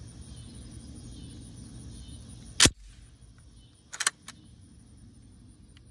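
Browning Maxus 2 semi-automatic shotgun's action being worked by hand: one loud, sharp metallic clack about halfway through, then a quick cluster of clicks a second or so later as the bolt handle is drawn back, and a faint click near the end.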